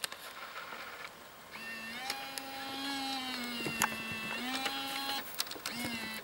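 VHS-C camcorder's tape mechanism motor whirring after power-on, a steady small-motor whine that shifts slightly in pitch, with a click partway through and a shorter whir near the end.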